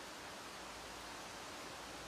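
Leaves of trees rustling in a steady wind, heard as an even hiss.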